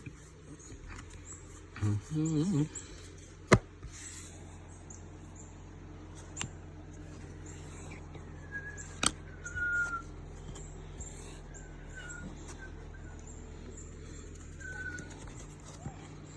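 Baseball cards being handled and sorted, with two sharp taps, over a steady low hum. Faint short bird chirps come in a few times in the second half.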